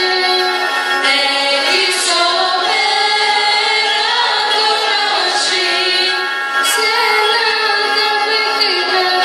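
A choir of mostly female voices singing a Pontic Greek song, accompanied by a bowed string instrument, with a few brief cymbal-like hisses.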